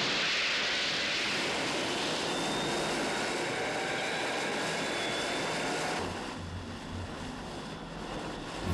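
A motor yacht running at high speed: steady engine noise mixed with rushing water along the hull, dropping to a quieter engine hum about six seconds in.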